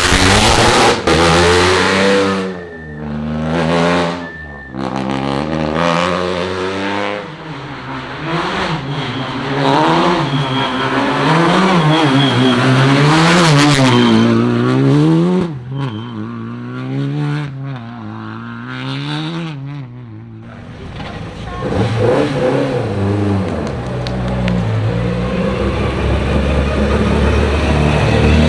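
Rally car engines revving up and down in quick repeated cycles as the cars accelerate and brake to warm their tyres, with a few sharp cracks. About two-thirds of the way through the revving gives way to a steadier engine sound that builds again.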